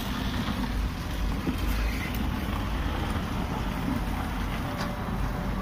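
Steady low rumbling background noise of an open vehicle yard, with a hiss above it and no distinct events.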